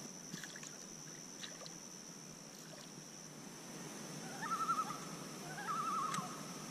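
A common loon giving two quavering tremolo calls, each about half a second long, the first about four and a half seconds in and the second near the end.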